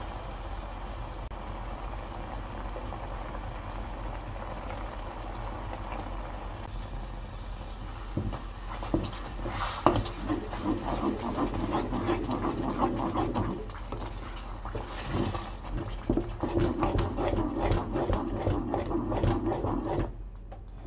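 A steady low hum, then from about eight seconds in a wooden spatula stirring and scraping thick beef-and-gochujang sauce in a saucepan, in quick irregular strokes with one sharp click.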